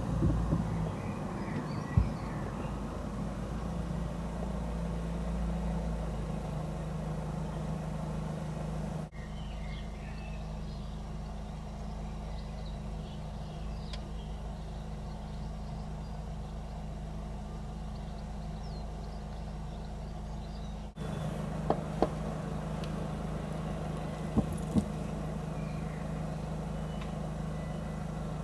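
Steady low hum of road vehicles idling while they wait at the lowered level-crossing barriers, with a few sharp clicks.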